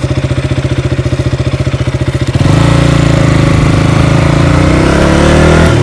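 KTM motorcycle's single-cylinder engine idling with an even beat, then pulling away about two and a half seconds in, its pitch rising as it accelerates. There is a short dip in the sound near the end.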